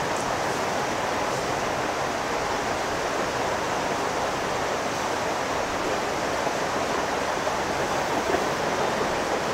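Hot-air rework station blowing a steady rush of air onto a phone's logic board, heating a small IC to desolder it.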